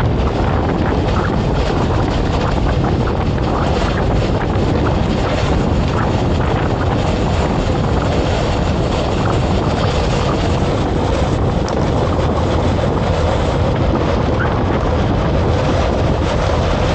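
Steady rushing wind noise on the microphone of a camera moving at speed, unbroken and even in level.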